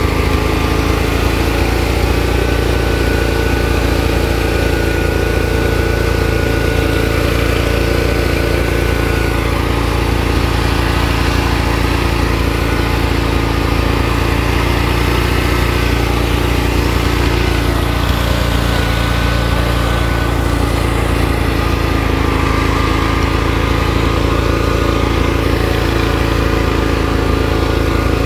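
Off-road lawn tractor engine running steadily while the tractor is driven along.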